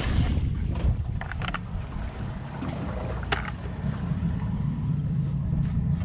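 Small boat's outboard motor running at idle with wind rumbling on the microphone. At the very start the splash of a crab pot thrown into the creek dies away, and a couple of short sharp knocks follow.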